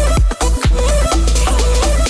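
Pop dance music with a heavy bass beat.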